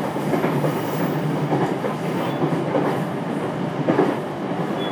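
JR East E721 series electric train running at speed, heard from inside the car: a steady rumble of wheels on the track with a louder knock about four seconds in.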